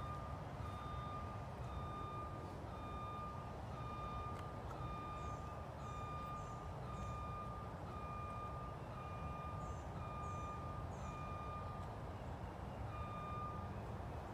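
Vehicle reversing alarm beeping at one steady pitch, about one and a half beeps a second, stopping shortly before the end.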